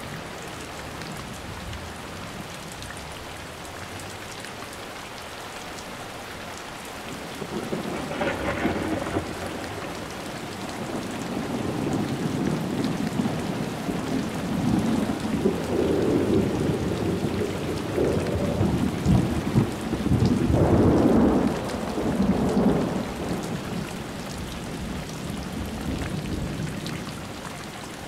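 Steady rain falling through a thunderstorm. About eight seconds in a thunderclap breaks, followed by a long rolling rumble of thunder that builds, peaks about two-thirds of the way through, then fades back to the rain.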